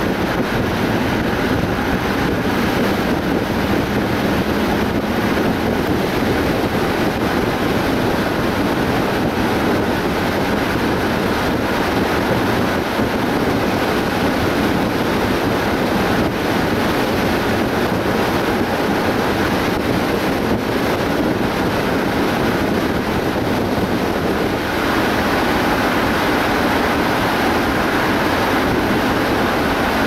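A car driving at road speed: a steady rush of tyre and wind noise, shifting slightly in tone near the end.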